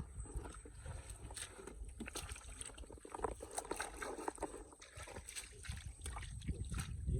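Shallow water splashing and sloshing in irregular small bursts, the sound of hands or feet working in a flooded field, over a low rumble.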